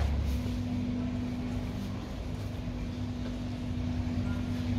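A steady low hum that holds one pitch throughout, over a low rumble and faint background noise.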